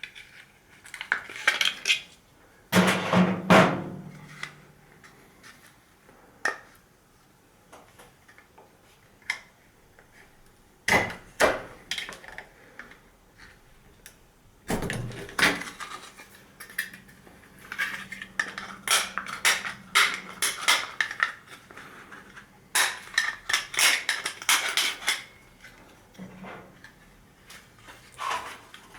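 Small hard plastic alarm parts being handled: bursts of quick clicks, taps and clatters, with quieter gaps between them.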